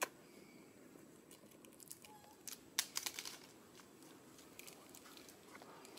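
Faint crinkling and scattered sharp clicks, with one click right at the start and a cluster of them about three seconds in.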